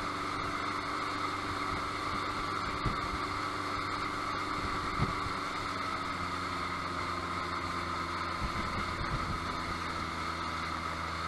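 Motorboat engine running steadily at towing speed, with the rush of water from the wake; a couple of brief knocks sound about 3 and 5 seconds in.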